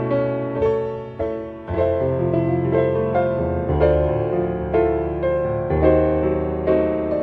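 Solo piano playing a slow, gentle piece: chords and single notes struck about once a second over held bass notes.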